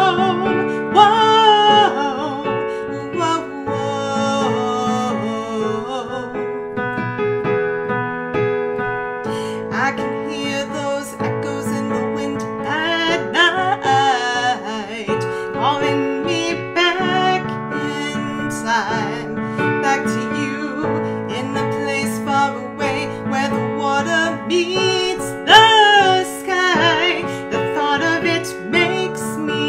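A woman singing a slow, sustained melody over piano accompaniment.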